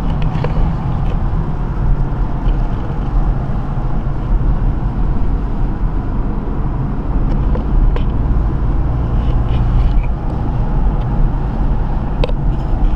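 Steady low road and tyre rumble with engine noise, heard inside the cabin of a moving Audi TT mk3 with the 2-litre petrol engine and automatic gearbox.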